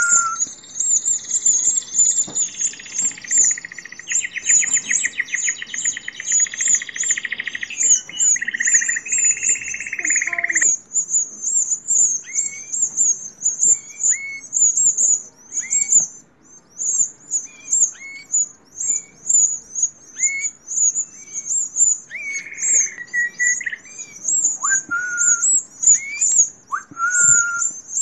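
Canary chicks begging to be fed: a continuous stream of very high, quick cheeps, about three or four a second, with a buzzy rasping call for several seconds near the start and short rising chirps and whistles later on.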